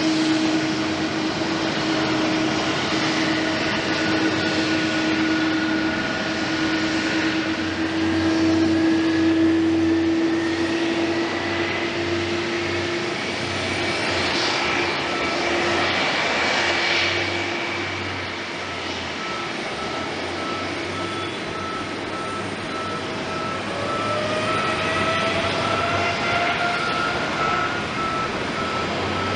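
Jet airliner engines, a Boeing 787-8 taxiing for most of it, running with a steady whine over a rushing noise. A whine climbs in pitch a little before the middle, and the noise swells around the middle.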